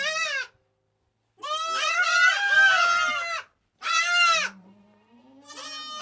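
Goats bleating loudly in protest while being caught and held for treatment, crying like babies: a short call, a long call of about two seconds, then a short call. A lower, quieter rising call follows near the end.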